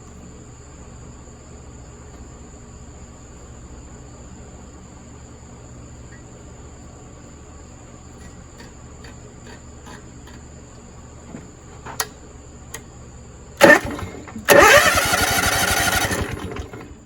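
Propane floor buffer's engine cranked on its electric starter without catching: a short bump of the starter, then about two seconds of steady cranking that winds down and stops. The engine is not starting because propane is not reaching it.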